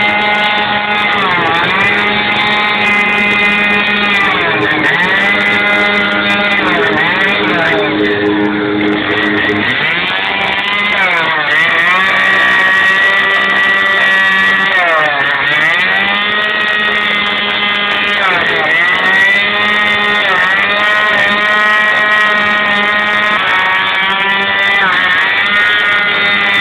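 Two-stroke chainsaw carving into a wooden block, its engine pitch sagging each time the chain bites under load and rising again between cuts, over and over. A steadier lower drone runs beneath it and stops about ten seconds in.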